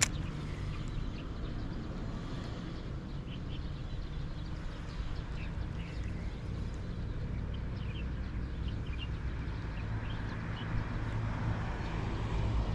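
Outdoor ambience: a steady low rumble, with faint scattered bird chirps and a single sharp click at the start.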